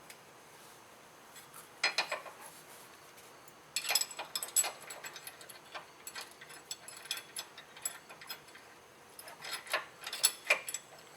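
Light metallic clicks and clinks of a steel mounting bracket and bolt being handled and fitted by hand against a Jeep TJ's motor mount and frame. A scatter of small ticks runs through the middle, with louder clusters about two, four and ten seconds in.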